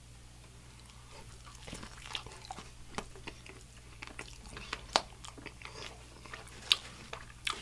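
Close-miked chewing of a mouthful of fried chicken sandwich: irregular wet mouth clicks and smacks. They start after about a second of quiet, and a few sharper clicks stand out.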